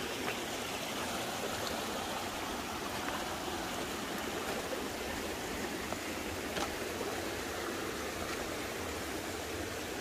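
A mountain stream running steadily over stones, an even rushing of water, with a few faint light ticks over it.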